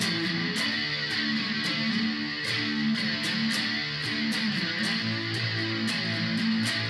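Electric guitar, a Stratocaster, strumming chords a few strokes a second through the Korg A5's flanger, set to slow speed and more depth.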